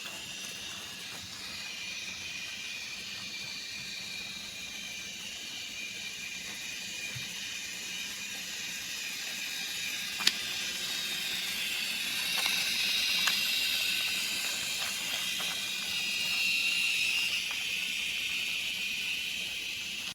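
A steady high hiss that swells somewhat in the second half, with a sharp click about ten seconds in and a few faint clicks after it.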